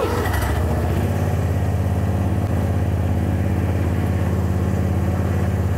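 Argo amphibious ATV's engine running steadily at an even, low pitch as the vehicle drives through flooded swamp.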